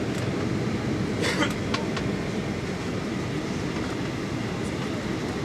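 Cabin noise of a Boeing 737-800 airliner during its landing approach close to the ground: a steady low rumble of engines and airflow, with a few short rattles or clicks a little over a second in.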